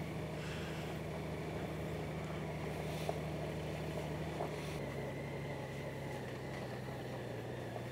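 Honda Gold Wing's flat-six engine running at low speed, a steady low hum that drops slightly in pitch about five seconds in.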